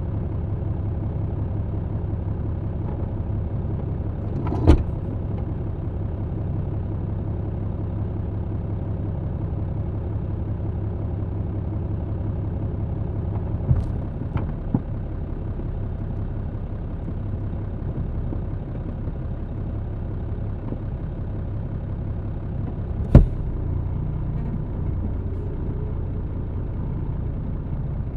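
MAN TGX truck's diesel engine running steadily, heard inside the cab, with three sharp knocks about nine seconds apart, the last the loudest.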